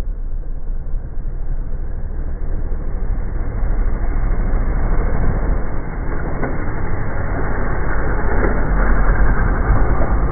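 Off-road racing buggy's engine running hard as the buggy approaches over rough dirt, growing steadily louder as it draws close.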